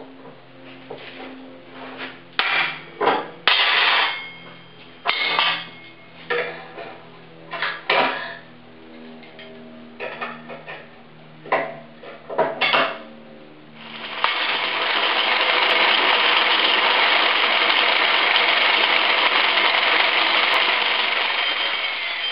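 Sharp metal clanks and knocks as steel pipe is handled and clamped in a bench vise, over background music. About 14 seconds in, an angle grinder starts cutting into the steel pipe: a loud, steady grinding that runs on without a break.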